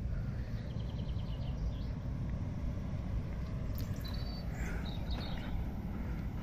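Steady low outdoor rumble, with a quick run of faint high bird chirps about a second in and a few more faint chirps later.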